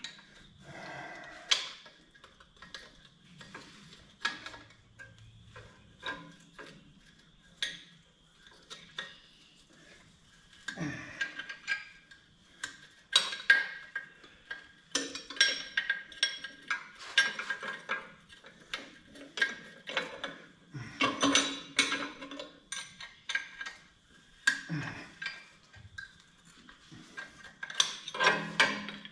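Hand ratchet wrench clicking in quick runs with metal clinks as exhaust manifold bolts are worked loose. The clicks are sparse at first and come in busy clusters from about ten seconds in.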